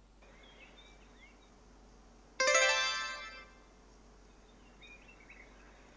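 A single bright, chime-like plucked note struck about two and a half seconds in, ringing and fading away over about a second; otherwise only a few faint high chirps.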